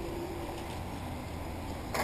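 Radio-controlled short-course trucks running around the track: a faint, wavering motor whine over a steady low rumble.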